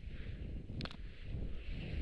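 Wind buffeting the microphone in a blizzard over the hiss of sliding down a snowy ski slope, with one sharp click a little under a second in.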